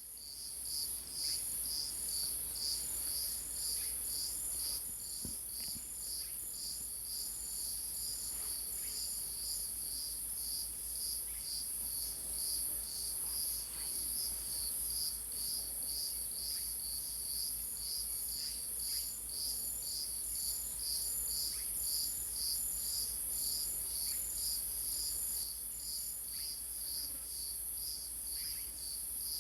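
Chorus of insects chirping: a steady high trill, with another insect chirping in an even pulse about two to three times a second.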